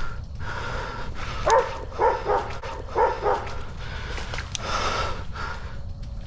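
Hog-hunting dog barking, a quick run of about five short barks between one and three and a half seconds in.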